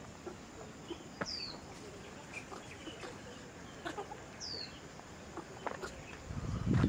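A bird calling twice, each a short, high whistle sliding downward, about three seconds apart, over scattered light clicks and rustles. Near the end a louder low rumble comes in.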